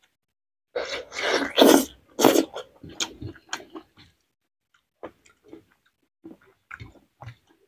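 Close-miked eating sounds: biting into and chewing a soft boiled cabbage leaf. The mouth noises are wet and loud for about a second and a half near the start, then turn into scattered quieter chewing clicks and lip smacks.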